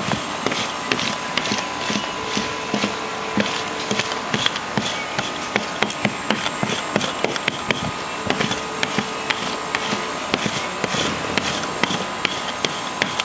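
Small electric fabric shaver buzzing as it is run over fleece fabric, with quick irregular clicks as its blades cut off the pills.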